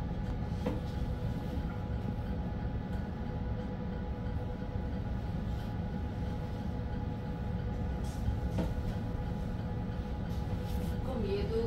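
Cabin noise inside a moving self-driving bus: a steady low rumble with a faint, steady hum over it, and a few light clicks.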